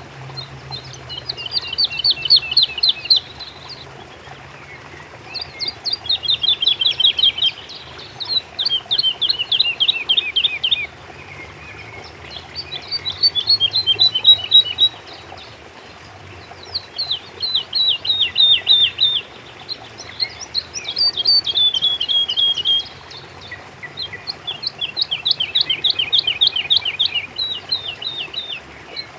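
A songbird singing about seven phrases in turn, each a quick run of rapid, falling high notes lasting two to four seconds, with short pauses between.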